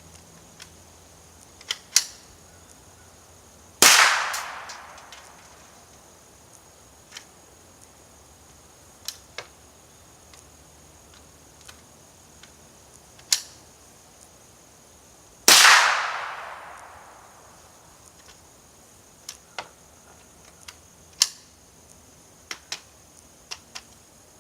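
Two .22 rifle shots from a Ruger 10/22, about eleven seconds apart, each ringing out with a long fading echo. Sharp metallic clicks and clacks come in between and after as the action is worked; the rifle keeps jamming.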